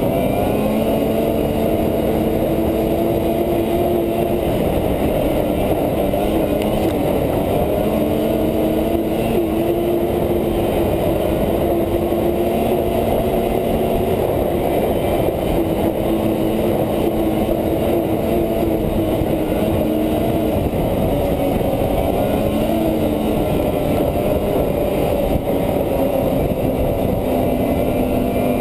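Polaris 550 two-stroke snowmobile engine running steadily at trail speed, heard on board the sled, its pitch dipping and rising slightly with the throttle a few times.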